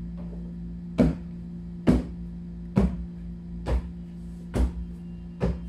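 Feet stomping on a floor mat in a slow, even rhythm: six stomps a little under a second apart, over a steady low hum.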